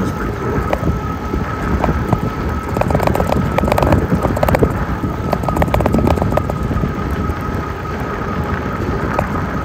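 E-bike riding over a gravel road: tyres crunching with scattered clicks and rattles, wind buffeting the microphone, and a steady high whine.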